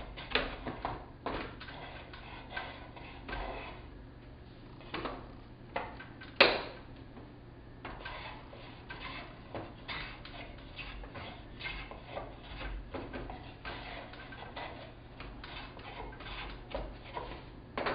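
Irregular light knocks, clicks and short scrapes of wooden workpieces and clamps being handled and set on a peg clamping table, with one sharp knock about six and a half seconds in.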